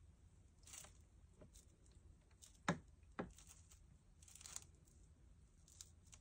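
Faint sounds of water being poured from a plastic bottle into a condensate pump's reservoir: soft rustles of the bottle and two small sharp ticks about half a second apart midway. The pump motor is still silent.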